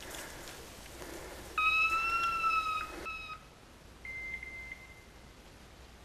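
Rustling through undergrowth, then two whistle-like signal tones. A loud, long, nearly steady blast of almost two seconds is followed about a second later by a fainter, higher, shorter tone.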